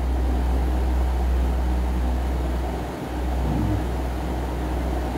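Steady low hum with a noisy rush above it: constant background room noise, with a brief dip about three seconds in.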